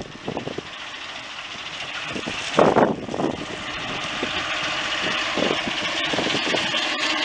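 Farm machinery engine running, growing steadily louder, with a short loud noise about two and a half seconds in.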